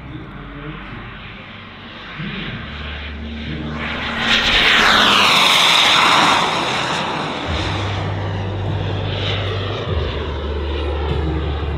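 A JetCat P400-Pro-LN turbine in a large-scale RC Fiat G.91 jet model makes a low, fast pass. Its whine grows to its loudest about four to six seconds in, sweeps down in pitch as the jet goes by, then carries on more quietly.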